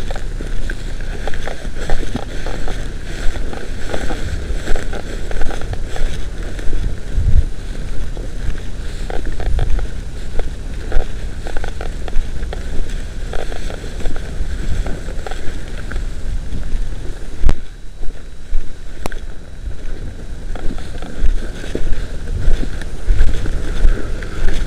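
Wind rumbling on a handheld microphone, with footsteps swishing and crunching through tall dry grass in an uneven walking rhythm.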